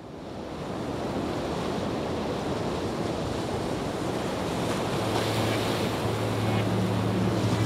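A steady rushing noise fades in and slowly swells. About five seconds in, a low held note of ambient background music enters beneath it.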